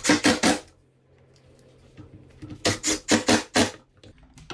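Cordless drill driving screws into a clamped wooden chair joint. It runs in two spells of short, rapid trigger bursts, one right at the start and one around the middle, each lasting about a second.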